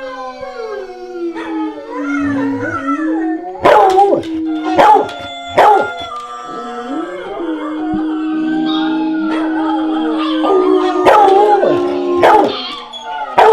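Recorded chorus of dogs howling, played through a TV speaker: many long howls held and overlapping, sliding in pitch. Loud sharp barks or yips cut through around four, five and six seconds in and twice near the end.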